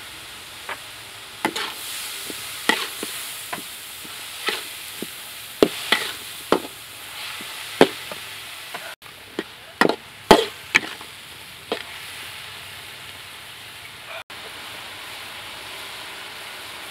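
Meat and vegetables sizzling in a steel wok while a metal spatula scrapes and knocks against the pan in irregular clacks; the clacks stop about twelve seconds in, leaving the steady sizzle.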